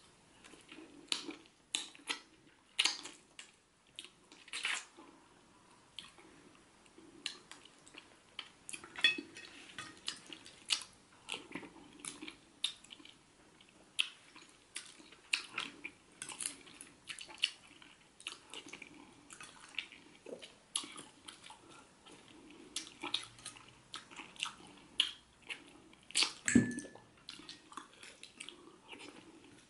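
Close-up eating sounds of catfish head pepper soup being eaten by hand: irregular wet chewing, lip smacks and mouth clicks. One louder knock comes a few seconds before the end.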